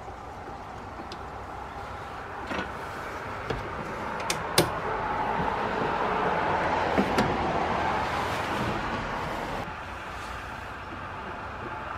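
Light clicks and knocks of steel, brass screws and wood as a 1950s Disston keyhole saw's blade and handle are fitted back together, with sharp clicks a few seconds in and a pair more about seven seconds in. Under them a rushing noise swells through the middle and cuts off suddenly near the end.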